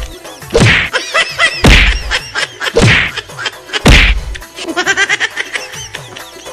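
Four loud whacks of a stick beating, about one a second, the last near the four-second mark, over background music.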